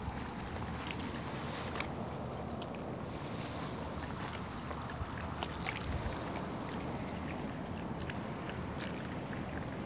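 Steady wind rumble on a handheld phone's microphone, with light, scattered crackles of dry leaf litter being disturbed.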